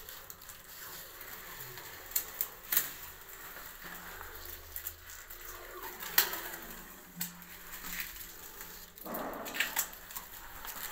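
Scattered clicks and scuffs of shoes on a tiled floor, sharpest about two seconds in and again around six and seven seconds, with a short scraping noise just after nine seconds.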